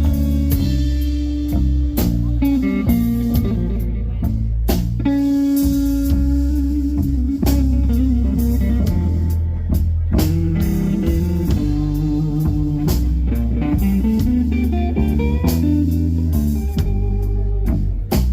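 Live blues band playing: guitar lines over bass and drum kit.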